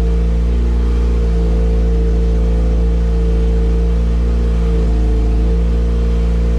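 Honda B18 four-cylinder engine idling steadily, kept running while its idle fueling is adjusted after it ran lean at about 17 AFR.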